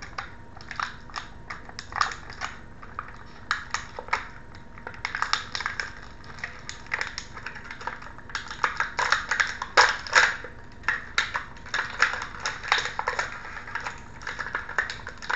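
Clear plastic packaging crackling and clicking as a wrestling action figure is worked free of its plastic tray by hand: a run of sharp, irregular crackles that grows denser in the second half.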